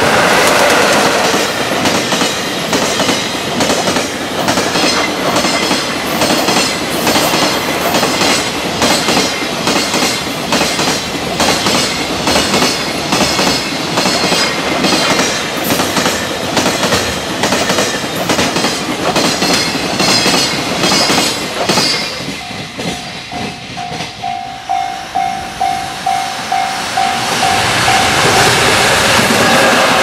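Freight train passing at speed, its wagon wheels clattering rhythmically over the rail joints. About two-thirds through, the train noise drops away and a level-crossing warning bell rings with an even pulse; near the end, train noise rises again.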